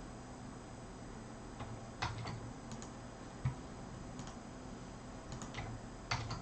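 Scattered light clicks and taps, about a dozen irregularly spaced, with one duller knock about three and a half seconds in, over a steady low hum.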